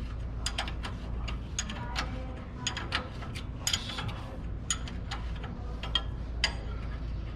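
Ratchet wrench clicking in quick, uneven strokes as a brake caliper bolt is tightened.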